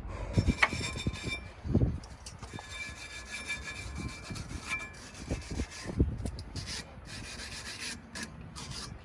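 Rubbing and scraping with a few dull knocks from hands-on work fitting a rubber air suspension bag on a truck.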